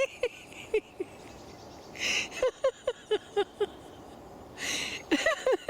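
People laughing in laughter yoga, in runs of quick, evenly spaced 'ha-ha-ha' bursts, with sharp breaths drawn in between the runs.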